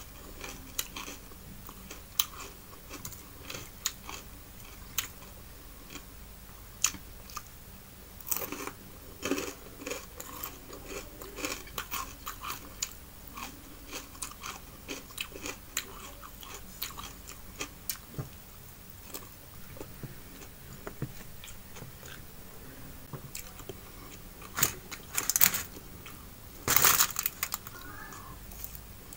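A person chewing and crunching fried fish, close to the microphone, with many small wet mouth clicks and crackles. A few louder crunches come near the end.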